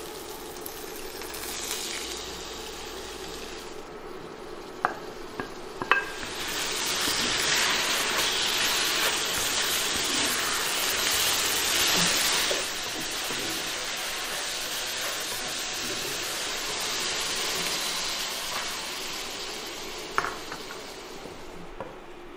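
Sliced tofu and scallions stir-frying in a sauce in a wok: a steady sizzle that grows louder a few seconds in, with a few sharp clinks of the spatula against the pan. The sizzle dies down near the end.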